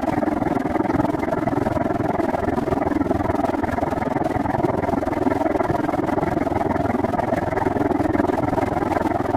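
Steady rushing wind and rolling noise of a bicycle being ridden, heard on a camera microphone exposed to the airflow, with no distinct events.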